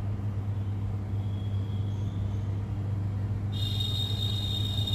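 Hot air rework station blowing on a phone board to reflow the solder balls under a reballed CPU chip: a steady blower hum and rush of air. A high thin whine joins about three and a half seconds in.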